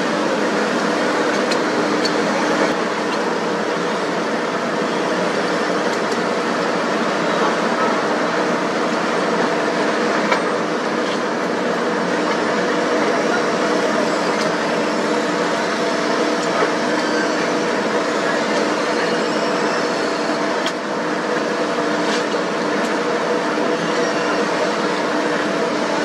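Heavy diesel engines of a tracked road paver and a tipper truck running steadily: an even drone with several held tones, broken only by a few light knocks.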